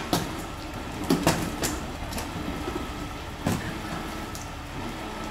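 Crane tow truck's engine and winch running steadily under load as a car is hauled up out of a swimming pool, with several sharp clanks, most of them in the first few seconds.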